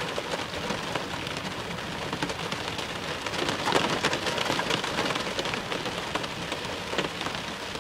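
Rain hitting a car, a steady hiss dotted with many sharp ticks of single drops, busiest near the middle.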